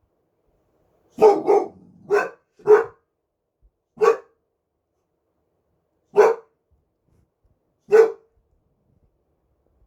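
One-year-old boxer dog barking: seven single barks, four in quick succession about a second in, then three more spaced about two seconds apart.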